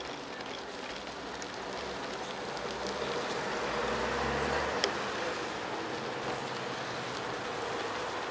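Street traffic on wet roads: a steady hiss with a low rumble that swells about four seconds in, then eases. One sharp click comes near five seconds.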